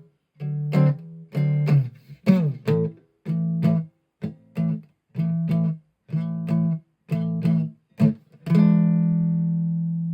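A.B. Manson Merlin played through an AER Bingo 2 amplifier with no effects. It plays a run of short, rhythmic plucked chords, about one every half second, each over a strong low ringing note. About eight and a half seconds in, a final chord is struck and left to ring out.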